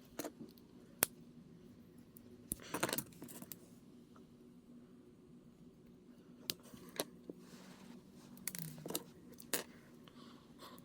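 Small plastic model-kit parts clicking and rattling as they are handled and snapped together. The clicks come one at a time, with small clusters about three seconds in and again near nine seconds.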